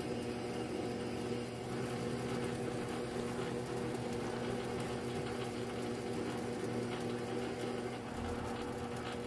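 Metal lathe running steadily with a constant hum while a parting tool cuts off the spinning tube.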